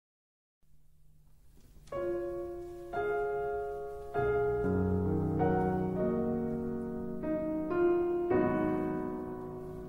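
Piano introduction to a recorded choral song: sustained chords struck one after another, roughly one a second, beginning about two seconds in after a moment of silence.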